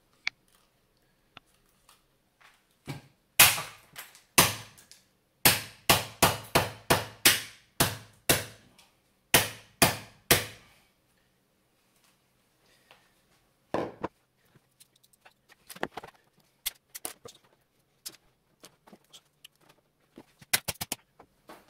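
Claw hammer striking the tubular casing of a CRT degaussing wand to break it open: about fifteen sharp blows in quick succession, roughly three a second, followed by scattered lighter clicks and knocks.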